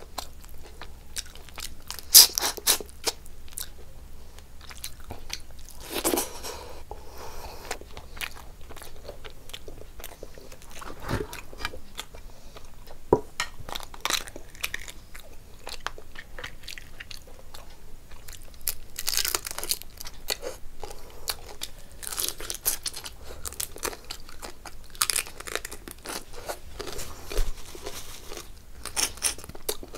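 Close-miked eating: chewing and crunching with many sharp clicks and cracks as crab shell is broken and bitten, and several bursts of louder crunching.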